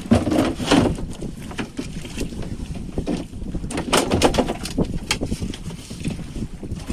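Wind buffeting the microphone on a small fishing boat at sea, coming in irregular gusts over a low rumble.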